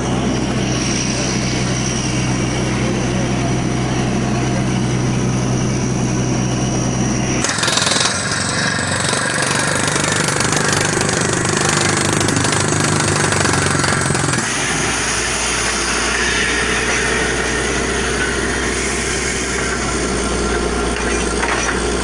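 Truck-mounted drilling rig running loud and steady, its engine and drill working the bore into the ground. The sound changes abruptly twice, becoming rattly and noisier about seven seconds in and returning to a steady low hum about seven seconds later.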